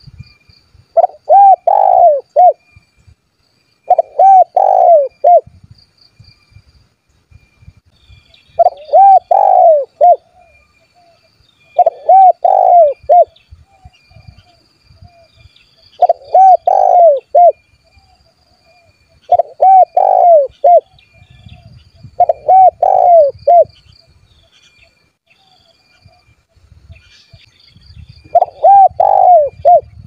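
Spotted dove cooing its territorial call: eight phrases of several quick, arching coos, each phrase about a second long and repeated every three to four seconds. Faint high-pitched chirping continues in the background.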